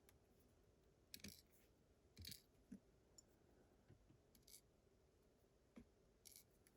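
A handful of faint clicks and short light scrapes of small metal parts being handled: the springs and pins being taken out of an Abus GDS padlock's plug.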